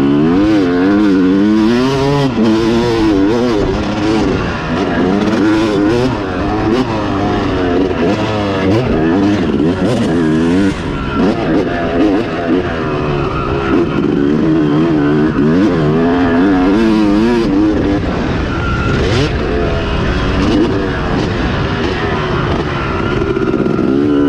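Yamaha YZ250 two-stroke motocross engine, heard from on board, revving up and down over and over as it is ridden around the track, the pitch swinging with each throttle opening and chop.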